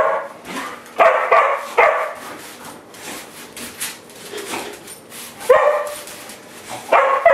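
Dog barking at a broom: two sharp barks about a second in, then more barks near the end, with softer scratching and rustling between them.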